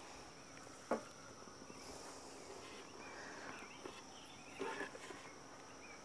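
Faint, steady high-pitched insect trill, with a sharp click about a second in and a short knock near five seconds as the beekeeping gear is handled.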